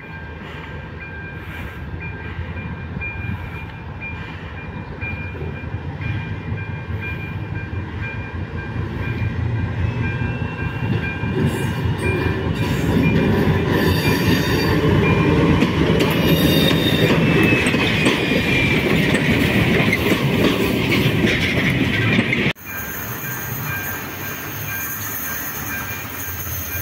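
A diesel freight locomotive approaching and passing close by, its engine growing steadily louder, with a high squeal from the wheels on the rails near its loudest. Near the end the sound cuts abruptly to a quieter, steadier engine sound from a class 743 diesel locomotive pushing a tank wagon further off.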